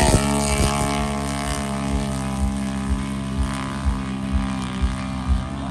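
ATV engine running hard at steady high revs: a loud droning note that holds one pitch.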